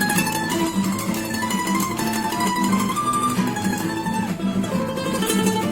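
Background music: a quick plucked-string tune over a steady repeating accompaniment.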